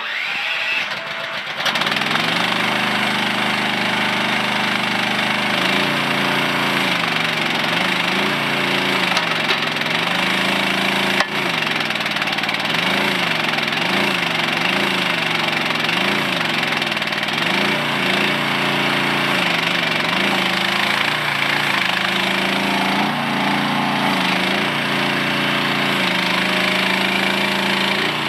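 Mini excavator engine running, coming up to speed in the first two seconds. Its pitch then dips and recovers again and again, typical of the engine taking load as the hydraulic controls are worked. There is a single sharp click about eleven seconds in.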